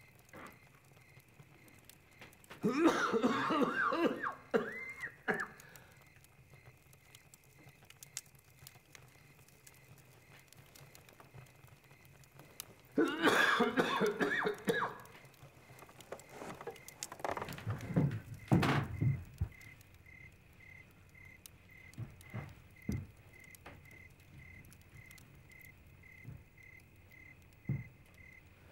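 A man coughing in two fits about ten seconds apart, each lasting a second or two, followed a few seconds later by some dull thumps.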